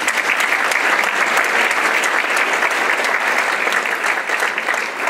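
Audience applauding, a dense, steady clatter of many hands clapping at the end of a talk.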